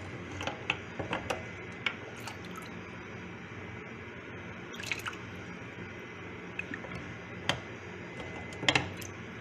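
Wet spider conch shells clicking and knocking against each other and the pot as a hand moves them about, with water dripping off them; a few scattered sharp clicks, the loudest a double knock near the end, over a steady low hiss.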